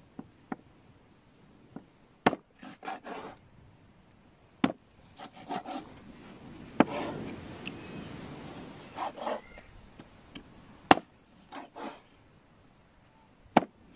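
Chinese cleaver-style kitchen knife cutting raw chicken into pieces on a wooden cutting board. There are about five sharp knocks of the blade on the board, between short runs of rasping, sawing strokes through skin and meat.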